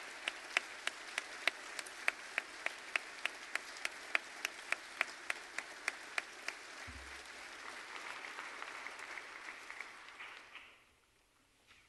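A congregation applauding, with one person's claps loud and evenly spaced at about three a second over the top for the first six seconds or so. The applause then thins out and stops shortly before the end.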